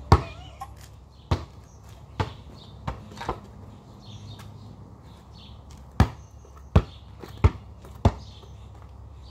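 A basketball bouncing on asphalt: five uneven bounces in the first few seconds, a pause of over two seconds, then four more bounces at a steady dribbling pace.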